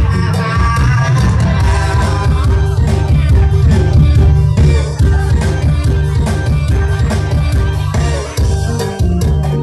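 Mor lam, the Isan folk style, played loud through a PA system: a heavy bass line and a steady beat, with a woman singing into a microphone over it.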